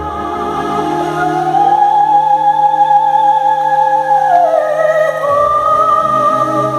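Opera-style music with long, wavering held notes; a held note slides down about four seconds in and a higher note takes over.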